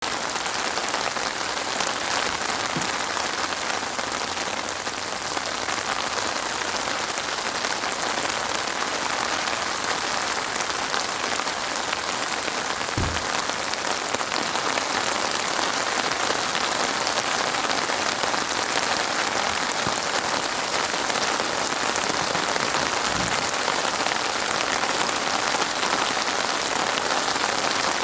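Steady rain falling and pattering on surfaces, a constant even hiss. Three brief low thumps stand out, at about 3, 13 and 23 seconds.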